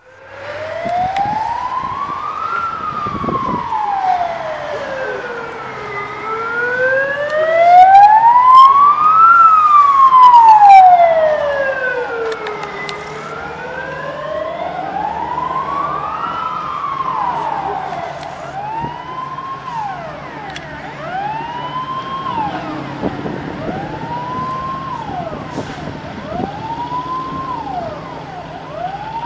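Fire truck sirens. A slow wail rises and falls about every six to seven seconds and is loudest about eight to eleven seconds in. From about eighteen seconds a faster siren cycle takes over, rising, holding and falling about every two seconds.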